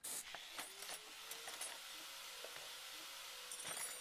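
Logo-intro sound effect: a steady hiss sprinkled with many small clicks and high, glinting ticks.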